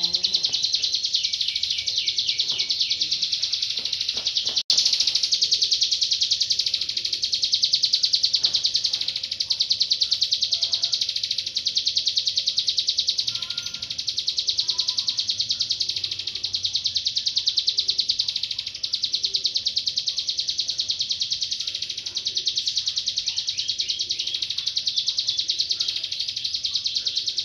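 Caged ciblek gunung (a prinia) singing a continuous, rapid, high-pitched trilling chatter, with a very brief break about five seconds in.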